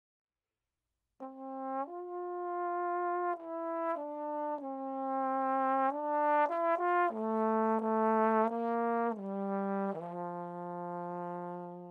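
Unaccompanied trombone playing a melody of single sustained notes, starting about a second in and ending on a long held low note.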